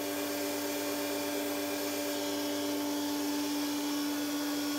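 Inefficient old pool pump motor running, really loud: a steady hum with several unchanging tones over a hiss.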